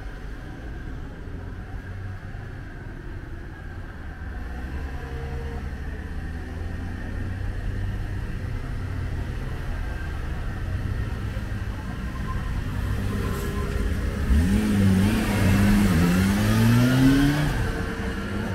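Steady low traffic rumble, then in the last few seconds a car accelerating close by: its engine rises in pitch, drops at a gear change and rises again.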